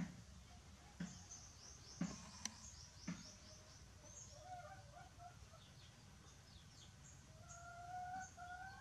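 Faint outdoor birdsong: small birds twittering high-pitched in the first few seconds, then a chicken calling in short pitched notes that grow longer and louder near the end. Four soft clicks, about a second apart, come in the first three seconds.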